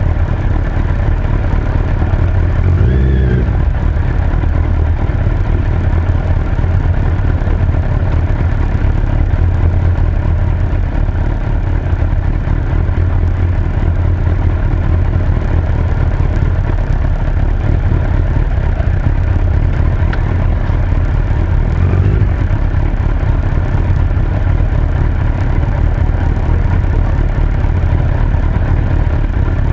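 Suzuki Hayabusa GSX1300R's inline-four engine running steadily under way, heard as a constant low rumble, with brief rises in engine pitch about three seconds in and again around twenty-two seconds in.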